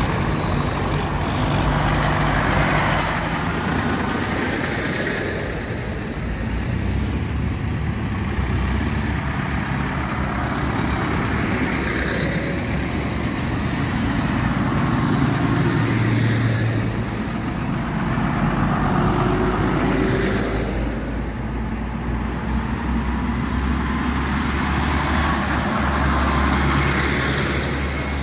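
A line of tractors driving past one after another, their engines running and tyres on the tarmac, the sound swelling and fading every few seconds as each one goes by.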